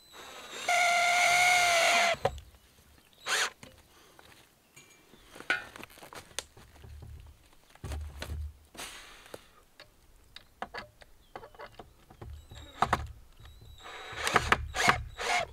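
A handheld power tool motor runs at a steady pitch for about a second and a half, then stops. After it come scattered knocks, thumps and clicks of wood and tools being handled, busiest near the end.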